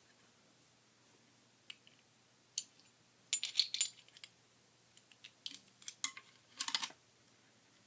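Small metal parts of a Remington 12-gauge shotgun being handled and fitted together by hand: scattered light metallic clicks, taps and rattles, a cluster about three to four seconds in and more from about five to seven seconds in.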